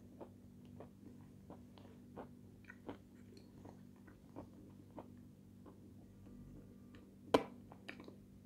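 Close-up eating sounds of a person chewing with the mouth closed: irregular small crunches and wet mouth clicks, with one sharper, louder click about seven seconds in. A faint steady hum runs underneath.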